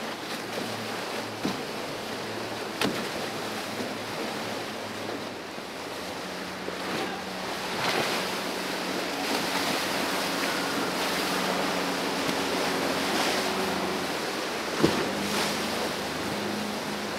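Rough, churning water and boat wakes rushing, with the steady hum of outboard motors running underneath. A few sharp knocks stand out, the loudest near the end.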